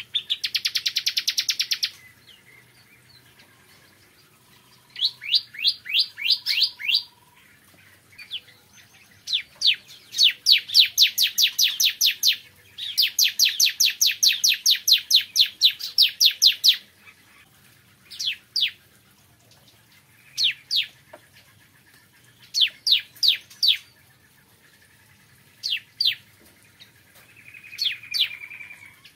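Ciblek kristal (bar-winged prinia) singing: fast trills of sharp, evenly repeated notes, about ten a second, in bursts of one to four seconds separated by short pauses, with a buzzy note near the end.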